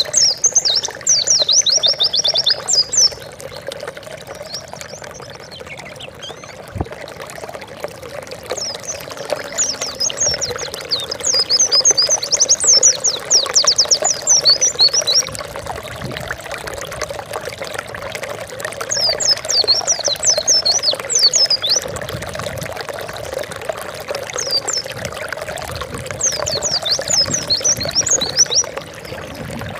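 White-eye (pleci) singing in several bursts of a few seconds each, each a rapid run of high, quickly repeated descending chirps, over a steady sound of running water.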